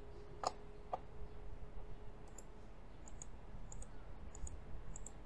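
Computer mouse button clicking: a series of short, sharp, light clicks, mostly in quick press-and-release pairs, spaced under a second apart.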